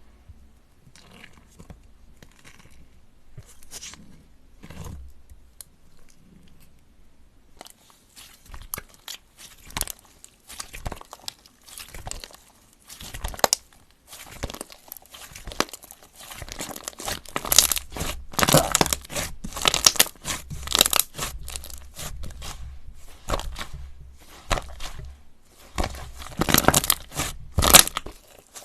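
Slime being squeezed, stretched and poked by hand, giving a string of crackles, crunchy pops and tearing sounds; sparse at first, then much denser and louder from about eight seconds in.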